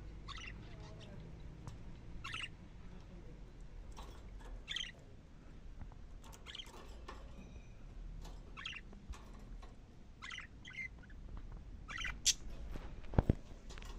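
Budgerigars chirping, short calls coming about every two seconds, with two sharp clicks near the end.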